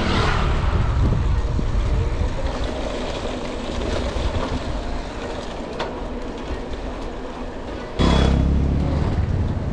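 Road noise heard from a moving bicycle: a steady wind rumble on the action-camera microphone, with traffic around. A vehicle goes by at the start, and a louder rumble comes in suddenly about eight seconds in.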